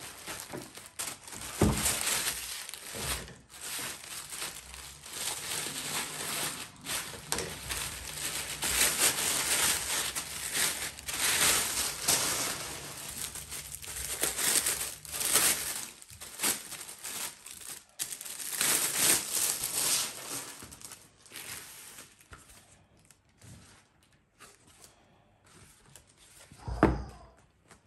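Plastic mailer bags and packaging rustling and crinkling as parcels are handled and opened, with quieter spells toward the end. A single sharp thud near the end as the back stretcher is set down on the wooden table.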